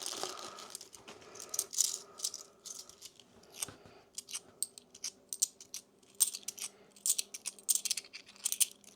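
British 50p coins clinking against each other as they are sorted through by hand, a run of irregular sharp metallic clicks.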